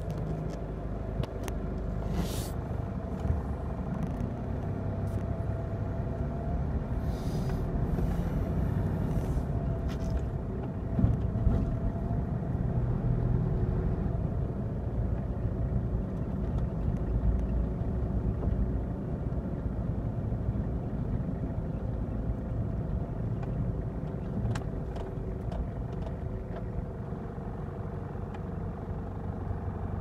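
Car engine running and tyres rumbling while driving slowly, heard from inside the cabin.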